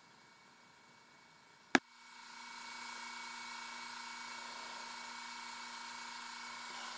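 A single sharp click, then a small electric motor starts up and runs with a steady hum and hiss, a few fixed tones sitting over the hiss.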